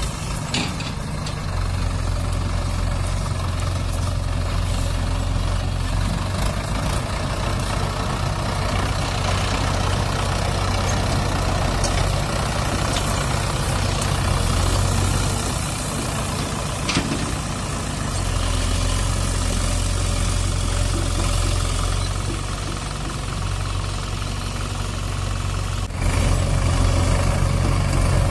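Mahindra 575 DI tractor's diesel engine running as it pulls a tipping trolley, a steady low thrum that eases off for a couple of seconds around the middle. Near the end the engine noise jumps suddenly louder.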